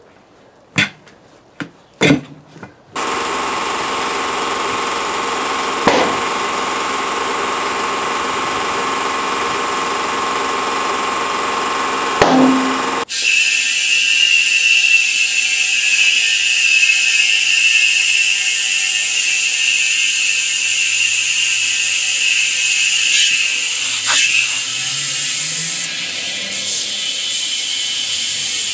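A few knocks, then compressed air hissing steadily from an air-hose chuck on the valve stem as a car tyre is inflated. The hiss changes sharply about halfway through and carries a stronger high tone after that.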